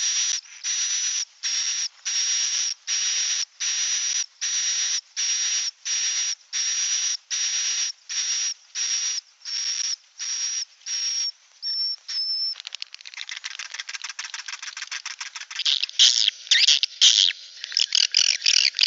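Swiftlet calls in evenly spaced buzzy chirps, about one and a half a second, each with a thin high whistle on top. About two-thirds of the way through the chirps give way to fast rapid clicking, then to louder, irregular twittering bursts.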